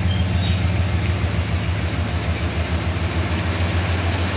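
Holden VP Commodore's engine idling steadily with the bonnet up, a smooth, even low hum.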